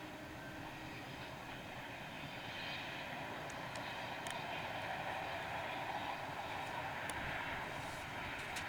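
A train running along the line, a steady rushing noise that swells a little through the middle and eases off near the end, with a few faint clicks.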